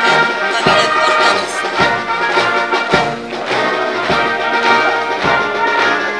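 Brass band playing a march, with a low drum beat about once a second.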